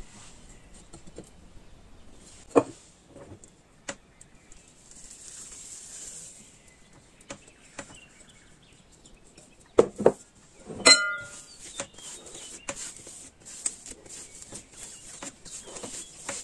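Hands working risen yeast dough on a counter. There are a few sharp knocks of bowls on the surface, and past the middle a glass bowl is set down with a brief ring. Then comes a steady run of small crackling, sticky sounds as the soft dough is peeled, pressed and folded.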